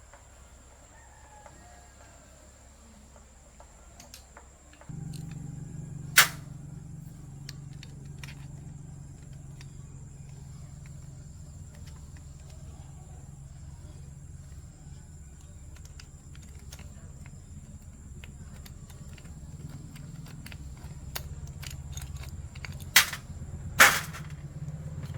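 A steady low electric hum starts suddenly about five seconds in and keeps going. Sharp knocks or clicks land over it, one loud one soon after the hum starts and two close together near the end.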